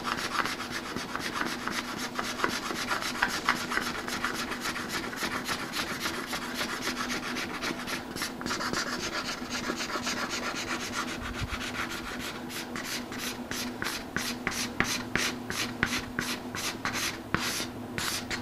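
Hand card scraper pushed in rapid strokes across a wooden panel, scraping dried epoxy fill flush and taking off fine shavings. The strokes blur together at first and become separate in the last few seconds, about four a second.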